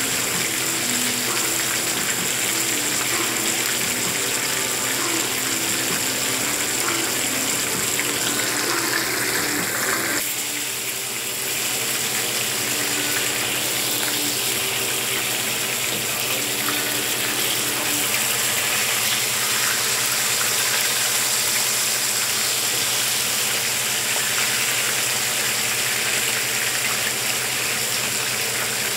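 Whole fish frying in hot oil in a frying pan, sizzling steadily, with a brief dip in the sizzle about ten seconds in.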